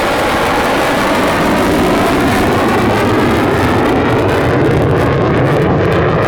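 Jet noise from an F-35A Lightning II's single F135 turbofan as the fighter flies past: a loud, steady rumble with a hiss on top. The hiss fades over the last couple of seconds as the jet moves away.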